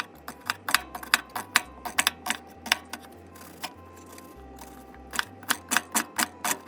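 Kitchen knife mincing an onion on a cutting board: quick, sharp chopping strokes about four a second, pausing for about a second a little past the middle. Background music with a low bass line underneath.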